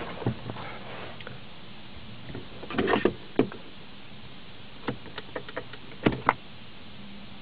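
Scattered short clicks and knocks of hands handling things inside a car's cabin, with a cluster about three seconds in and two sharp knocks near six seconds, over a faint steady hum.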